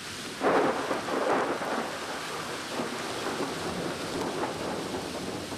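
Thunder rumbling about half a second in, then steady heavy rain.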